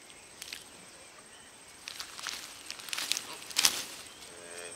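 A proboscis monkey feeding on young leaves: leaves rustling and crackling, with scattered sharp snaps of twig and leaf, the loudest a little past halfway.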